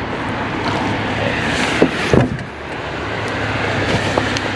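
A boat motor humming steadily under a wash of noise, with a couple of short knocks about two seconds in.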